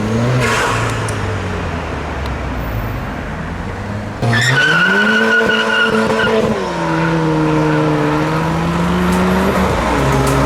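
A car accelerating hard. About four seconds in the engine revs climb sharply and the tyres squeal in a wheelspin for a couple of seconds, then the engine settles to a steady note as it drives on.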